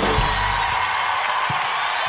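A live band's final note cuts off and rings out within the first half second, leaving a studio audience cheering and whooping.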